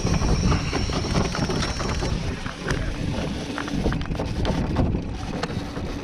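Wind buffeting the microphone, with scattered knocks and rattles of handling aboard a fishing boat; a steady low hum comes in about halfway through.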